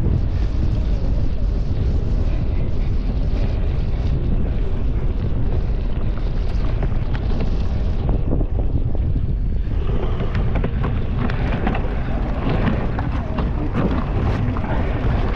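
Wind rushing over the microphone of a GoPro riding on a cyclocross bike at race speed, a heavy steady rumble. From about ten seconds in, a denser clatter of the bike and tyres over rough ground joins it.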